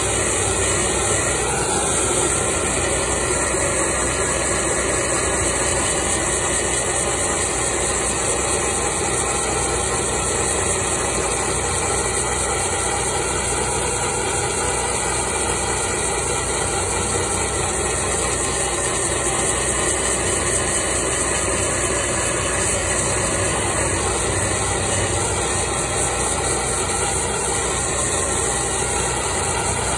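Handheld gas torch burning with a steady, unbroken hiss as its flame is played over a wooden axe handle to scorch it dark.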